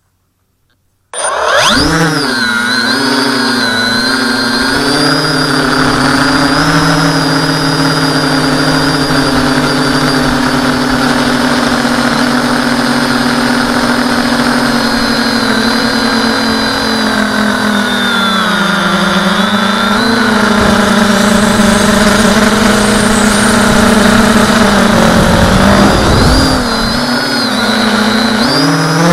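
Tricopter's three electric motors and propellers spinning up suddenly about a second in, then a loud steady buzzing whine whose pitch dips and rises as the throttle changes in flight.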